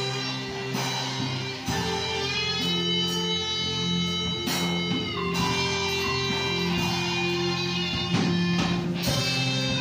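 Live church band playing, with guitar to the fore over bass guitar, drums and keyboard, notes held and gliding with occasional drum strikes.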